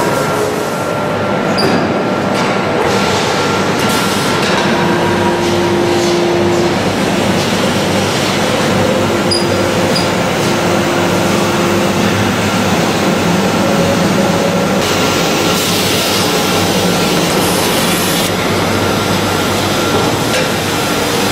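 Steady mechanical din of a short-cycle melamine press line running, with humming tones that come and go and a few clanks. About fifteen seconds in, a hiss rises for about three seconds.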